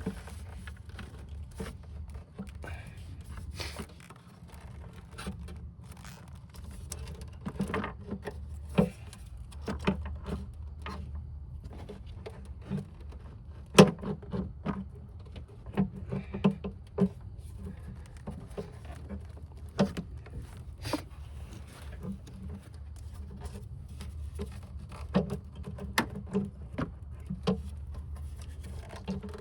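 Irregular clicks, taps and knocks as an intake manifold is worked by hand into place over a car engine, knocking against the hoses, studs and brackets around it, over a steady low hum.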